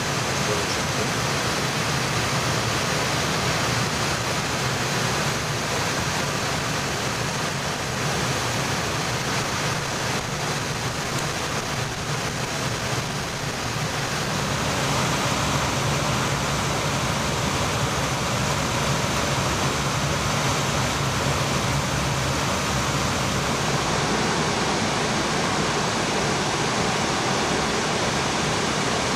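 Steady rushing noise inside an Airbus A320 cockpit in flight, the airflow and ventilation of the flight deck, with a steady low hum beneath it.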